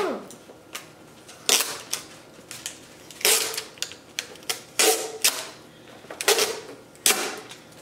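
Adhesive tape being peeled off a clear plastic packaging case: about five short rasping rips, a second or two apart.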